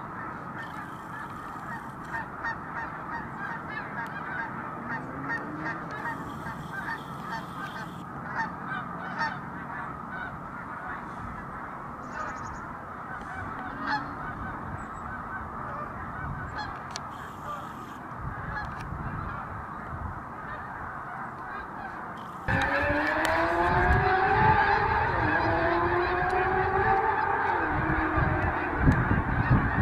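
A large flock of snow geese calling overhead: a dense, continuous chorus of overlapping honks. About 22 seconds in, the sound abruptly gets louder, with a low rumble and a rising pitched hum under the calls.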